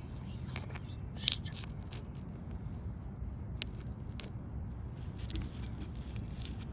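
Scraping and light rattling of small hard objects being handled, with two sharp clicks, one about a second in and one about three and a half seconds in, over a steady low rumble.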